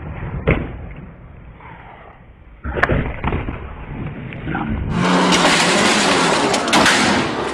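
A few sharp knocks and a scraping clatter. Then, about five seconds in, a loud snowmobile engine revving hard as the sled is driven up loading ramps onto a pickup bed.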